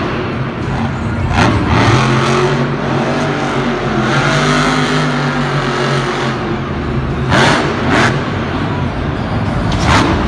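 A radio-controlled toy monster truck's electric motor whining as it drives, the pitch shifting with the throttle. Short sharp sounds break in a few times: once early, twice about three quarters of the way in, and again near the end.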